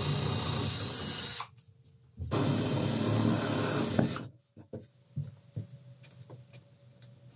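Cordless drill boring holes into the wall for wall anchors, in two steady runs: the first stops about a second and a half in, the second runs from just after two seconds to about four seconds in. A few faint clicks and taps follow.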